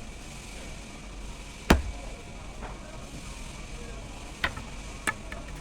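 An axe striking wood: one heavy chop about 1.7 seconds in, then three lighter knocks, over a steady low background hum.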